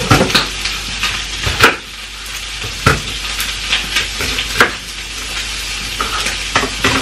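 Chicken liver frying in a pan on a gas hob, a steady sizzle throughout. Over it come several sharp knocks as a chopping board and knife are handled on the worktop, the loudest about a second and a half in.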